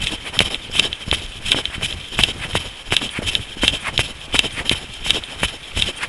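A runner's footsteps striking the path in a steady running rhythm, about three steps a second.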